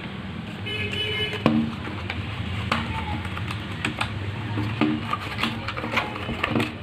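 Packaging of an aux cable being opened and handled, with irregular sharp clicks and crackles.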